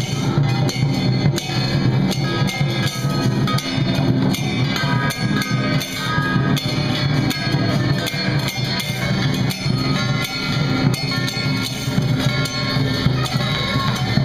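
Temple-procession band music: a large barrel drum and metal percussion beaten in a dense, steady rhythm, with a melody line playing over them.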